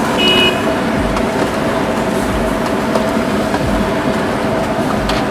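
Steady street traffic noise with an engine hum running under it, and a short high beep about a quarter second in.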